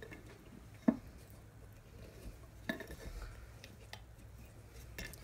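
A few small clicks and knocks from hands handling a small wooden box's lid and a screw, the sharpest about a second in and another near three seconds.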